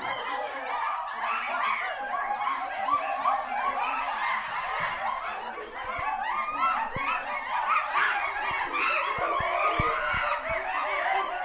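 A group of chimpanzees chattering and calling agitatedly, many short cries overlapping without a break.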